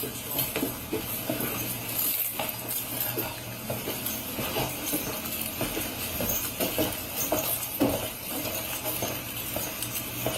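Footsteps with an irregular jingle and clink of a police officer's duty gear, heard through a body camera as he moves on foot, over a faint steady hum.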